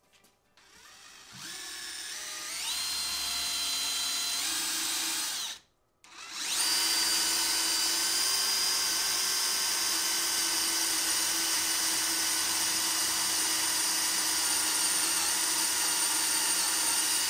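Cordless drill running in reverse, its left-handed center drill cutting into a broken screw that thread locker holds fast. The motor whine rises in steps over the first few seconds, stops briefly about six seconds in, then runs steadily at full speed. The screw does not back out; the bit only cuts a center hole.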